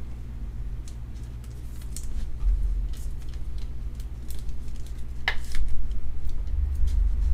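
A trading card being slid into a rigid clear plastic top loader: a few light plastic clicks and scrapes, the sharpest a little after halfway, over a steady low hum.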